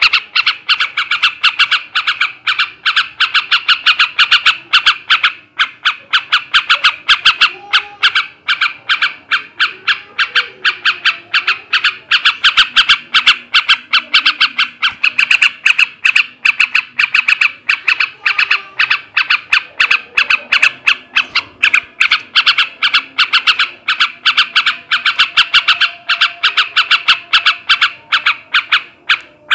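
Male yellow-vented bulbul (trucukan) calling in a long, rapid chattering run of sharp notes, several a second without a break.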